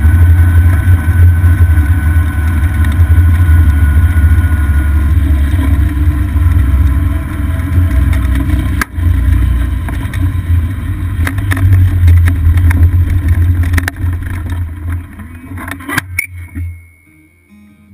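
Golf cart driving, heard from a mount low on the cart: a steady low rumble of wind and running noise, with scattered rattles and knocks from bumps. The noise cuts off sharply near the end.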